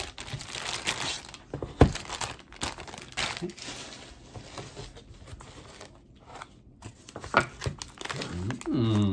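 Clear plastic zip-top bags crinkling and rustling as they are handled and opened, with a sharp knock about two seconds in. A short hum-like voiced sound comes near the end.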